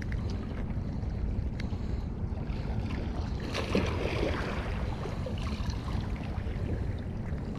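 Wind rumbling on the microphone over water lapping, with a short stretch of splashing and handling noise about three and a half seconds in.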